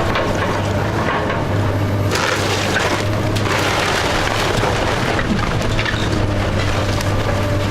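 A house being demolished by heavy machinery: the machine's engine runs steadily under the crack and splinter of wood framing breaking and debris crashing down in bursts, heaviest from about two to five seconds in.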